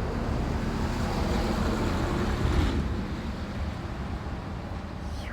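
Road traffic: a steady low rumble of vehicles, with one passing close and loudest about two and a half seconds in, then fading.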